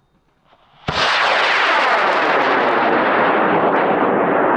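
Aerotech L1420 high-power rocket motor igniting about a second in and burning with a loud, steady rush of noise, its highest hiss slowly dulling.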